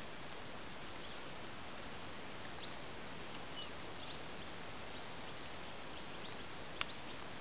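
Steady outdoor hiss with a few short, high chirps from small birds; the sharpest and loudest chirp comes near the end.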